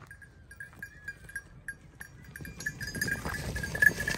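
A flock of sheep walking over dry, stony ground, their hooves shuffling and clicking, louder from about halfway. Through it a small bell clinks over and over at one pitch.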